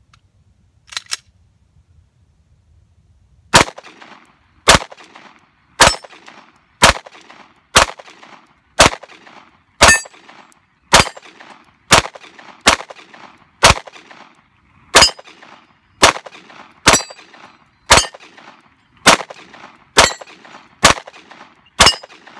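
Nineteen 9mm pistol shots from a Glock, fired steadily at about one a second, each followed by the clang of the AR500 steel plate it hits. The magazine empties with no malfunction.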